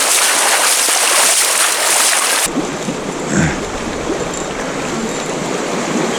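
Creek water rushing steadily. About two and a half seconds in, the sound changes abruptly to a duller rush with a low rumble, like wind on the microphone.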